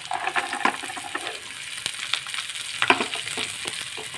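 Bean sprouts and fried tofu stir-frying in a wok: a steady sizzle, with a metal spatula scraping and knocking against the pan a few times, most sharply about three seconds in.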